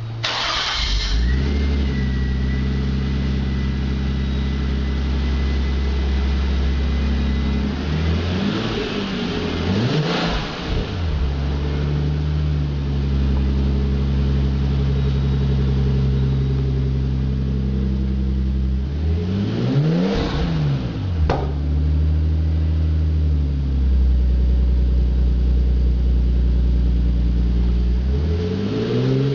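Nissan Skyline R34 GTT's turbocharged RB25DET straight-six, breathing through a Trust Power Extreme II exhaust, starts up about half a second in and idles, with a thin high whine over the first several seconds. It is blipped a few times, revs rising and falling quickly, around ten seconds in and around twenty seconds in, and revs up again near the end.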